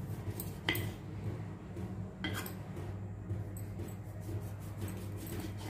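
Kitchen knife slicing boiled, softened lemons into rounds on a wooden cutting board, the blade tapping the board sharply three times, over a steady low hum.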